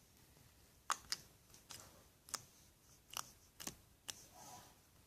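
Homemade fluffy slime being squeezed and stretched by hand, giving off a scattering of short, sharp clicking pops, about seven of them, the little "clinking noise" of air pockets popping in the slime.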